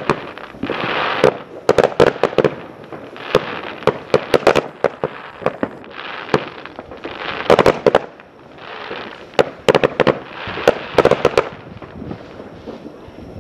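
Aerial fireworks going off: many sharp bangs, several in quick clusters, over stretches of dense crackle.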